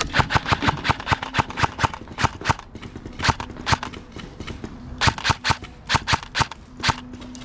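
Airsoft guns firing: a fast, irregular string of sharp snapping shots in clusters, broken by a few short pauses.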